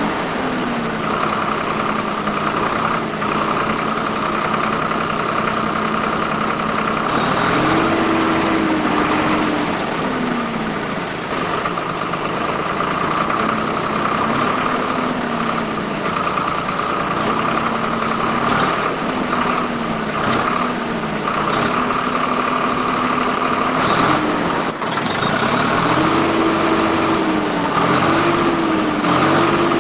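Small DC gear motors of a homemade model tractor and its rotary tiller whirring steadily, the pitch dipping and rising again and again as the load changes. A few brief sharp clicks are scattered through it.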